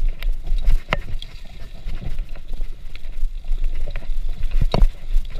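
Mountain bike riding fast down a bumpy dirt trail, heard from a chest-mounted GoPro: irregular rattles and knocks of the bike over roots and bumps, with sharper knocks about a second in and near the end, over a steady low rumble of wind and trail noise on the microphone.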